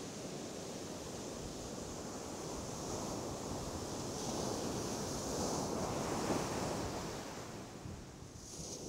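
Ocean surf breaking and a rushing sheet of foam washing up the sand, swelling about halfway through and easing off near the end.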